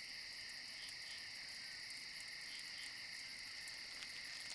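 Crickets chirping in a steady night chorus, a faint high trill with a fast, even pulse.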